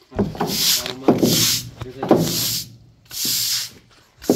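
Slow footsteps on a wet gravel track, about one step a second. Each step is a dull thud followed by a gritty scrape.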